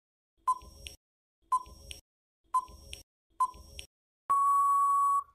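Quiz countdown timer sound effect: short tick-beeps about once a second, four of them, then one long steady beep near the end as the time runs out.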